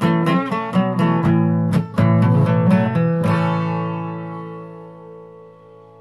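Acoustic guitar strummed in a quick rhythm, then a closing chord struck about three seconds in and left ringing, fading slowly.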